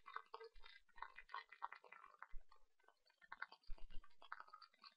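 Faint, irregular clicking as keys are entered on an on-screen calculator emulator, with light rustling close to the microphone.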